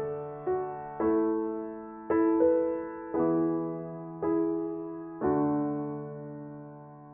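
Slow solo piano music: chords struck about once a second, each left to ring and fade, the last one held and dying away near the end.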